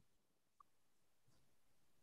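Near silence: open video-call line with no one speaking.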